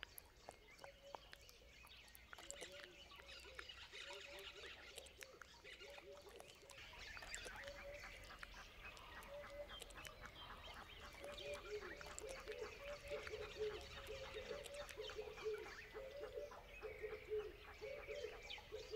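Nature ambience: a chorus of short, repeated low calls that grows busier and louder in the second half, with birds chirping throughout.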